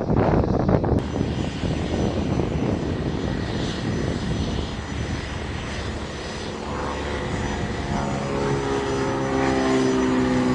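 Airplane engine running: a steady rushing noise, with a set of humming engine tones coming in about seven seconds in and growing a little louder.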